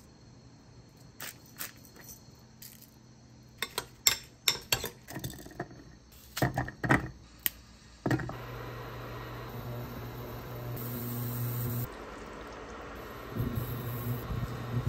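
Dishes and utensils clinking and knocking in a series of short sharp sounds. About eight seconds in, a kitchen appliance starts running with a steady low hum that carries on to the end.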